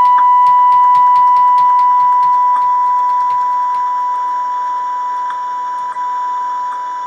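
Transistor radio's loudspeaker sounding a steady, loud single-pitch test tone: the demodulated tone of a 455 kHz IF test signal coupled in during IF alignment. The tone slowly gets quieter as the signal is backed off, with faint ticking over it.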